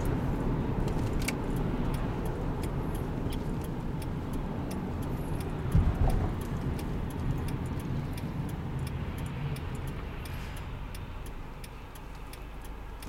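Car cabin noise while driving: a steady low engine and road rumble, with scattered light clicks and jingles and a single thump about six seconds in. The rumble grows quieter near the end.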